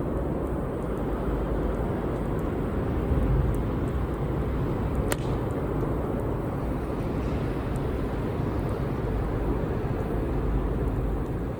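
Campfire burning with a steady low rumble and a few sharp crackles, one louder pop about five seconds in.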